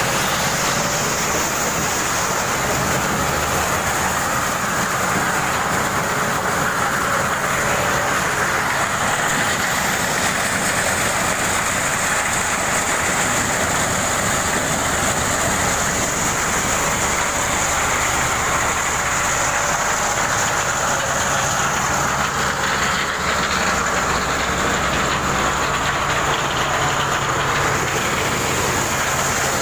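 Engine-driven corn sheller that threshes unhusked cobs, running steadily: a low engine drone under a dense, even mechanical noise from the threshing drum.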